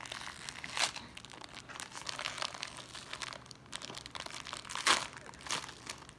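Foil wrapping of an L.O.L. Surprise doll crinkling as hands pull it open, with sharper crackles about a second in and again near five seconds.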